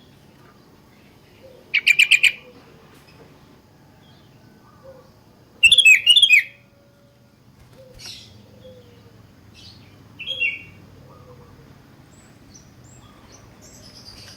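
Sooty-headed bulbul calling. A quick burst of chirps comes about two seconds in, then a louder, more complex phrase near the middle, then a few fainter calls.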